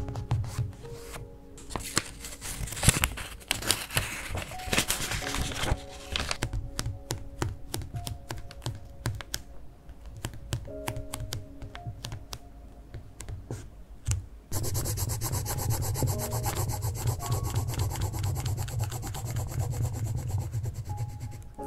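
A wooden burnishing stick rubbing firmly back and forth over a print-on transfer sticker laid on a paper diary page, pressing the design off its clear film onto the paper. About two-thirds of the way through, the rubbing turns into a steady run of quick strokes.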